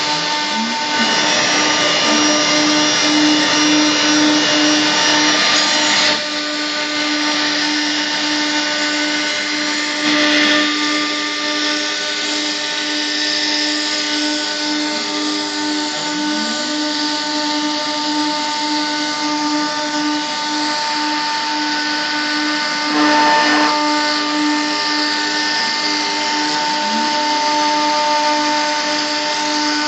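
CNC router running: the spindle gives a steady whine over a hiss of cutting noise, with a few short rising sweeps in pitch and brief louder swells now and then.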